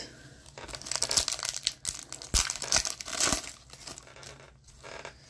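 A foil wrapper of a 2019-20 Upper Deck Series One hockey card pack being torn open and crinkled. The wrapper crackles densely for about three seconds, with a few sharp snaps, then goes quieter.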